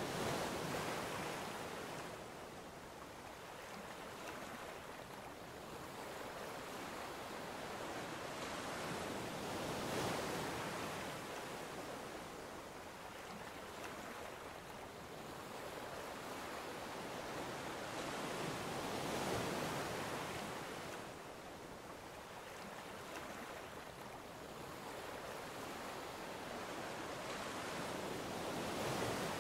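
Ocean surf breaking on a beach: a steady rush of noise that swells and eases about every nine to ten seconds as each wave comes in.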